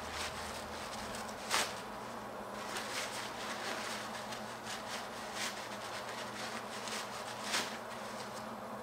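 Paper towel rustling and crinkling as small metal spindle parts are wiped clean by hand, with a couple of sharper crinkles, over a low steady hum.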